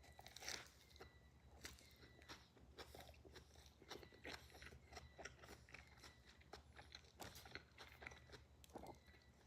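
Faint, close chewing of an untoasted sub sandwich: a run of small, irregular crunches and mouth clicks.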